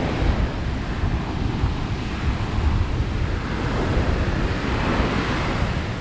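Ocean surf breaking and washing up the beach, with a wash swelling about five seconds in, under wind buffeting the microphone in low gusty rumbles.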